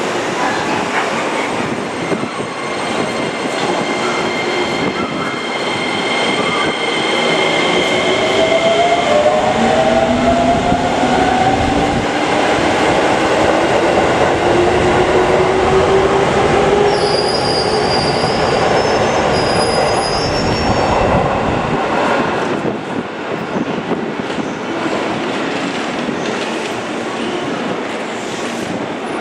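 Musashino Line electric commuter train pulling into the platform and braking to a stop: rumbling wheels, a motor whine that glides upward in pitch through the middle, and high squealing tones as it nears the stop. The noise drops after about twenty-two seconds once the train has stopped.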